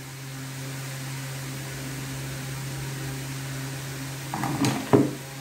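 A steady low hum with a faint hiss behind it. About five seconds in come a few brief handling sounds and a sharp knock as the plastic PVC tube is moved in the hands.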